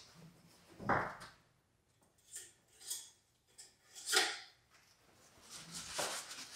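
Scattered short handling noises as parts are moved about: a knock about a second in, then a few light clicks and scrapes.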